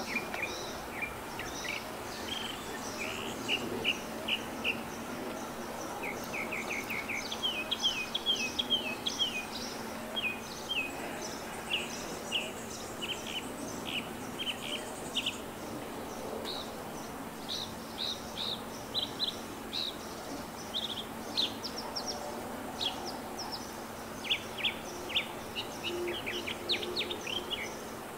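Small birds chirping, many short, quick calls in rapid runs, over a steady low hum and background noise.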